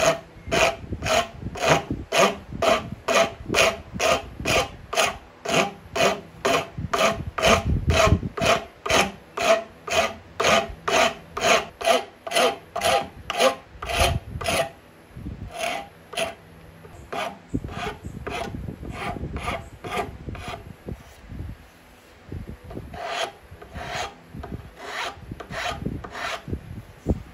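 Flat hand file stroked across the corner of a wooden block held in a vise, rounding it over: a steady rasping rhythm of about two and a half strokes a second, which becomes slower and more spaced out about halfway through.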